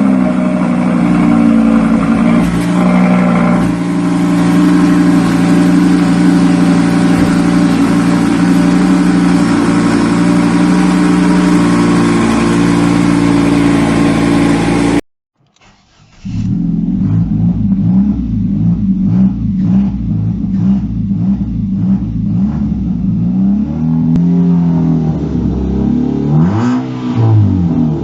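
Modified car engine running at a steady, fast idle with a deep exhaust note. It cuts off about halfway through, and another car's engine idles roughly and is blipped in a few quick revs near the end.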